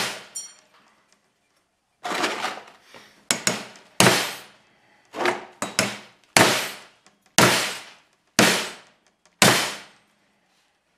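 Hammer blows on aluminum square tubing clamped in a vise: about ten sharp strikes roughly a second apart, each ringing out briefly, as the brazed butt joint is beaten to test its strength and the tube bends.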